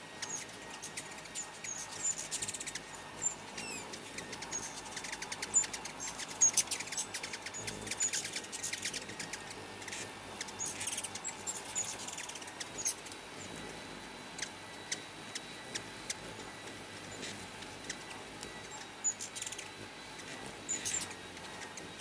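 A crowd of ruby-throated hummingbirds squabbling at nectar feeders: rapid, high-pitched chips and squeaky twittering in scattered bursts, busiest about six seconds in.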